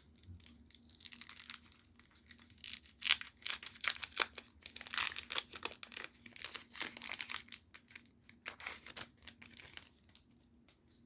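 Foil wrapper of a Magic: The Gathering booster pack being torn open and crinkled by hand: dense, irregular crackling that fades out near the end.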